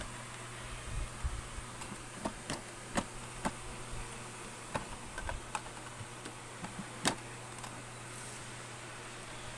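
Scattered light clicks and knocks of a hard plastic equipment carrying case, its foam insert and metal latch being handled as the case is closed up, the sharpest knock about seven seconds in. A faint steady hum runs underneath.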